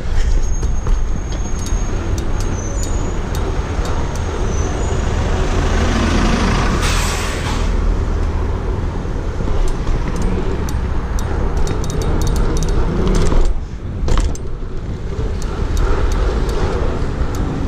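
Wind buffeting the microphone of a rider-worn camera while a BMX bike is ridden through city traffic, with passing cars and small clicks and rattles from the bike. A brief hiss rises about seven seconds in.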